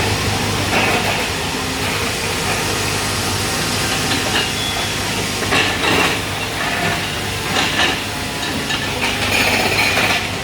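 Heavy machinery engine running steadily with a continuous hiss, with short clattering noises about halfway through and again near the end.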